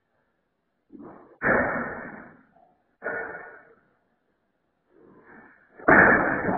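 Two sudden thumps about a second and a half apart, each fading out in under a second, then a louder crash near the end as a barber chair with a man in it tips over backwards.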